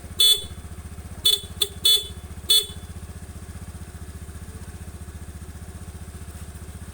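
Motorcycle horn beeping five times in short, quick toots in the first three seconds, over the motorcycle's engine idling steadily.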